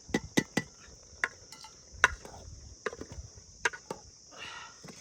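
A spoon clinking and knocking against the cookware in a quick irregular run of sharp taps as the red chilli, turmeric and coriander paste is scraped into the chicken curry pot. Crickets chirp steadily in the background.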